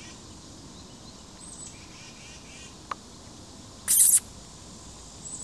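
A mink gives one short, loud crunch on dry cat food about four seconds in, over steady high chirping that repeats several times a second.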